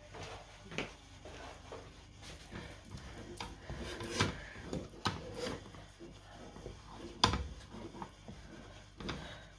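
Wooden spatula scraping and folding thick ube halaya paste around a non-stick pan in irregular strokes, with a sharp knock about seven seconds in.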